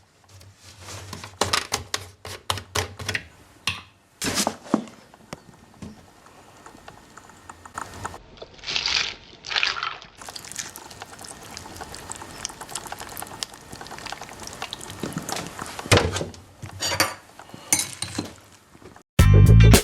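Something being poured into a dish, in hissing bursts, among light clicks and clinks of bowls being handled.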